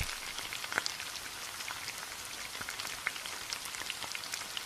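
Steady hiss with many scattered small crackles and pops.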